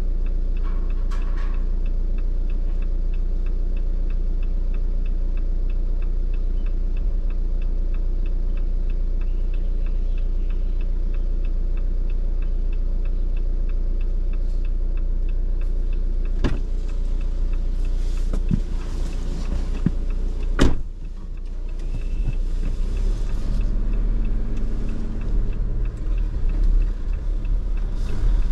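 Jeep Compass driving, a steady engine and road drone with a faint regular ticking in the first half. A couple of sharp knocks come in the second half, the louder one about two-thirds of the way through, after which the rumble grows rougher and more uneven.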